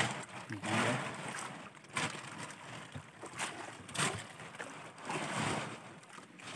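Irregular rustling and sloshing with a few short knocks as a cut-open plastic jerrycan and plastic sheeting are handled in a fishing boat's fish hold.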